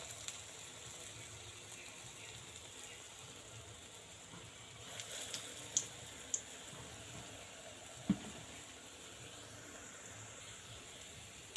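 Hot oil sizzling faintly and steadily around urad dal batter balls (bora) frying in a kadai, with a few small pops a little after the middle and a single light knock about two-thirds in.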